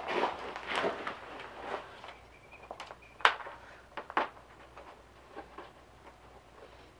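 Hands working cord at a wooden crossbar of a toboggan: light rustling and scraping, then a few sharp clicks about three and four seconds in, quieter in the second half.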